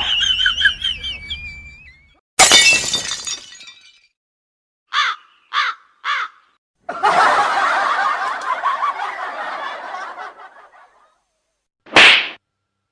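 A string of separate cartoon-style comedy sound effects. First a short voice-like clip with wavering pitch, then a sudden loud crash a couple of seconds in, then three quick short squeaks each falling in pitch. After that comes a few seconds of noisy, wavering chatter-like sound and a short sharp hit near the end, with silent gaps between them.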